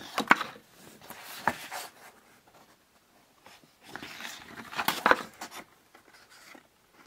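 Paper photographs being handled and shuffled by hand: rustling with light taps and clicks in three short bouts, at the start, about a second and a half in, and around four to five seconds in.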